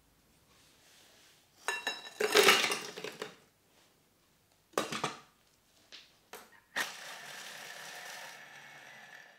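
Hard speculoos cookies tipped from a glass bowl clatter into the steel bowl of a kitchen machine, a clustered run of clicks and knocks. A sharp knock follows, then a few small clicks as the machine's lid goes on, and a steady even hum starts near the end.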